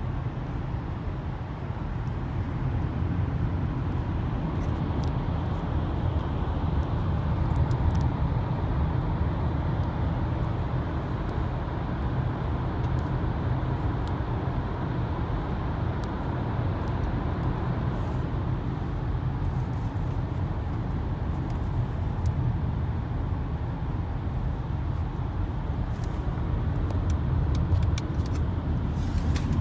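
Steady road and engine rumble of a car driving in traffic, heard from inside the cabin while passing through a road tunnel.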